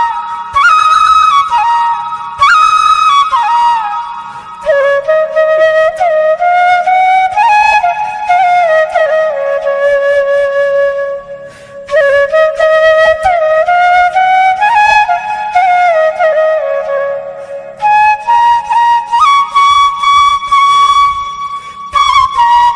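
Instrumental background music: a solo wind-instrument melody that slides between notes, with a few short breaks between phrases.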